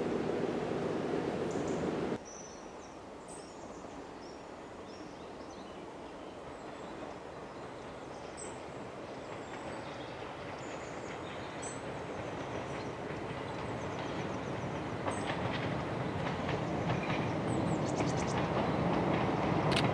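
Diesel tourist train approaching along the riverbank, growing steadily louder, with birds chirping. About two seconds in, a louder low rumble cuts off abruptly.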